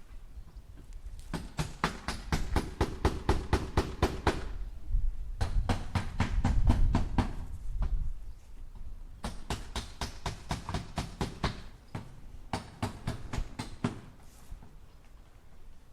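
Hammer driving nails into wood: four runs of quick, even strikes, about five a second, with short pauses between the runs.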